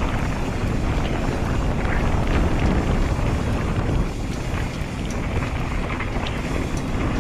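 Wind buffeting an action camera's microphone as an Audax enduro mountain bike rolls fast downhill on a wet dirt road, with tyre noise and a few small clicks and rattles from the bike.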